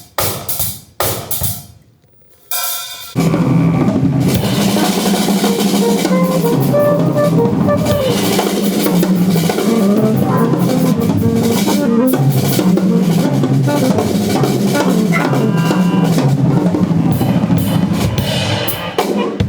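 A few separate drum-kit hits, then from about three seconds in the big band plays together, with drums and a stepping bass line under the band.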